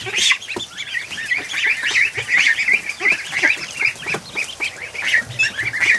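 A crowd of ducklings and goslings peeping: many short, high chirps overlapping in a steady chorus.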